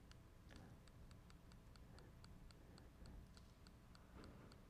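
Near silence with faint, even ticking, about four to five ticks a second, over a low background hum.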